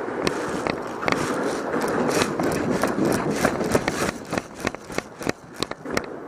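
Quick footsteps, a few a second and irregular, with heavy clothing and gear rustle on the body-worn microphone of a player on the move.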